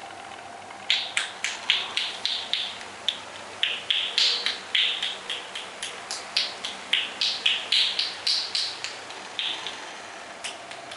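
Percussive massage: rapid sharp hand slaps and cupped-hand claps on the body, about three to four a second, starting about a second in and stopping shortly before the end.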